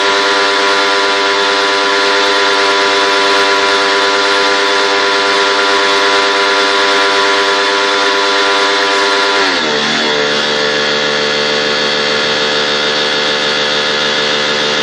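A motor running steadily with a hum over a hiss. About nine and a half seconds in, its pitch drops sharply and stays lower.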